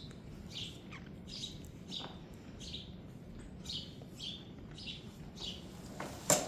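A soft grooming brush swept over a horse's coat in quick, even strokes, about two a second. One sharp knock near the end.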